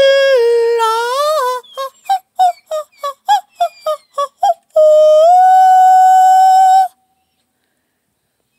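A high voice singing or howling: a long wavering note that dips and rises, then a quick run of about ten short notes, then a long held note that steps up in pitch and stops abruptly.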